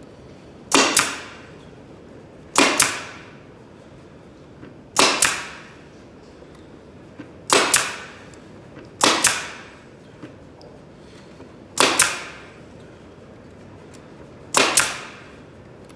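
Pneumatic air stapler firing staples into wooden Langstroth beehive frames held in an assembly jig: seven sharp shots at uneven intervals of about two seconds, each a quick double crack with a short fading tail.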